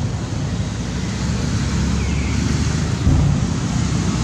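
Wind buffeting the microphone outdoors, a steady low rumble that surges in a stronger gust about three seconds in. A faint short chirp sounds about two seconds in.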